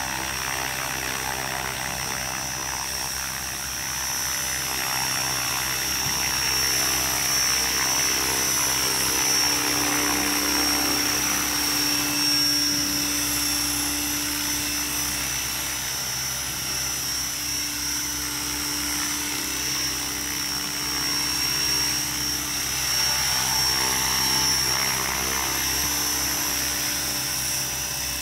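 Electric RC helicopter, a HobbyKing 550 flybar model converted to 600-size main blades and tail boom, running at hover: a steady high motor whine over the rotor noise, swelling and easing slightly.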